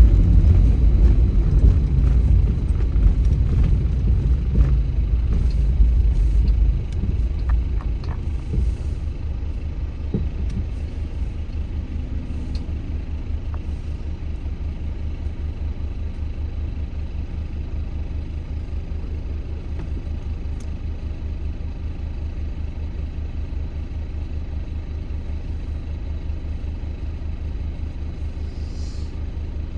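A car on the move: steady low rumble of engine and road noise, louder for the first seven seconds or so, then settling lower and even.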